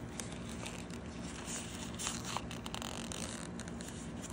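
Faint rustling and light handling noise from a thin recycled-nylon zip wallet and its care tag being turned over in the hands, with a few small ticks and scratches.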